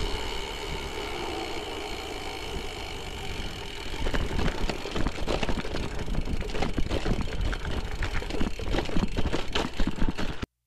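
Gravel bike being ridden: tyre noise and the bike's rattle over a rough surface, steady for the first few seconds, then a dense run of small knocks and jolts from about four seconds in.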